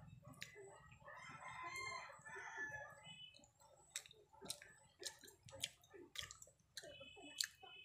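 A rooster crowing faintly, one long crow in the first half and a shorter call near the end, over scattered sharp clicks from eating.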